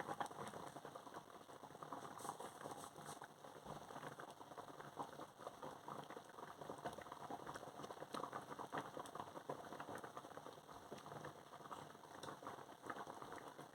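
Pot of thickened chicken soup simmering on the stove: a faint, dense patter of small bubbling pops.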